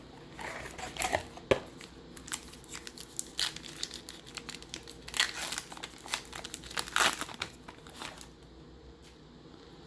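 Foil wrapper of a Topps baseball card pack being torn open and crinkled, in a run of irregular crackles and rustles that die away near the end.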